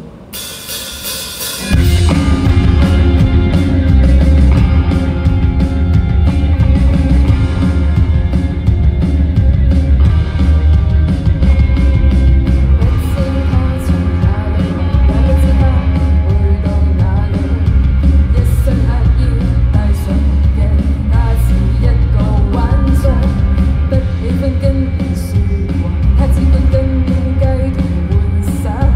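A live rock band with electric guitar and drums comes in at full volume about two seconds in, and a woman sings the melody over it.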